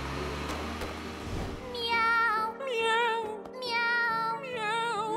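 A cartoon truck's engine rumble and hiss fill the first second and a half or so. Then a voice sings meow-like notes in several short phrases, warbling with strong vibrato over background music.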